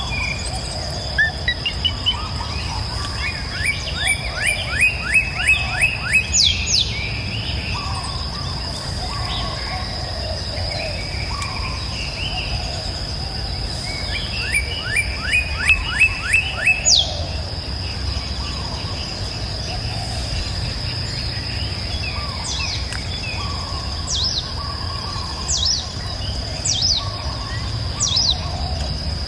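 Songbirds singing: one bird twice delivers a quick run of about eight repeated notes ending in a sharp downward whistle, and short downward-slurred calls come near the end. A steady high-pitched tone and a low rumble run underneath.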